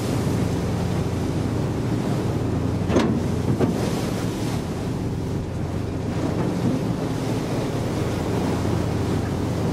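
Wind buffeting the microphone over the wash of rough sea along a ship's hull, with a sharp thump about three seconds in and a smaller one just after.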